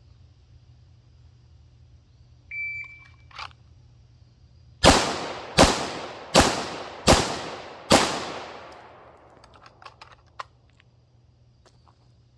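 A shot timer gives one short start beep, then about two seconds later a PSA Dagger 9mm pistol fires five shots about three-quarters of a second apart, each with a ringing echo trailing off.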